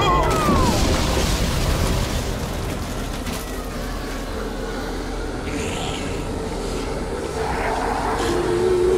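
Low, rumbling, ominous drone. A steady held tone comes in over the last couple of seconds.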